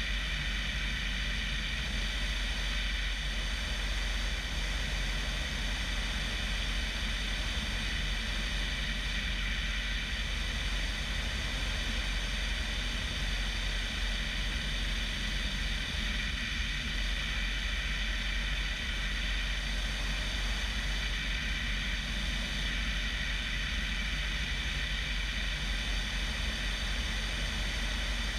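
A 1975 Bellanca Decathlon's 150 hp Lycoming engine and constant-speed propeller running steadily in flight, heard from outside the cabin with heavy wind rush on the microphone.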